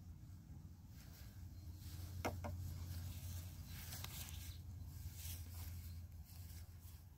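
Faint outdoor ambience: a steady low hum under light rustling, with two quick clicks a little over two seconds in.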